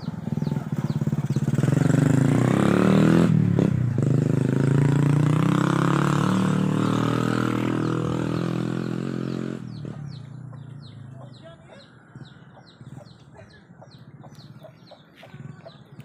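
A motorcycle engine running close by, swelling over the first couple of seconds and then slowly fading as it moves off. Its pitch bends as it goes. It cuts off abruptly about ten seconds in, leaving faint high chirps repeating two or three times a second.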